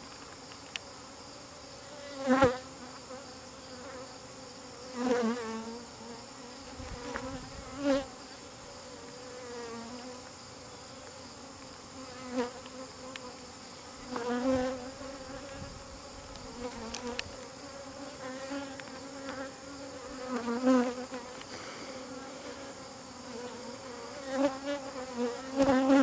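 Honey bees buzzing around an open top-bar hive: a steady hum of many bees, with single bees flying close past every few seconds. Their buzz swells and wavers in pitch as they pass.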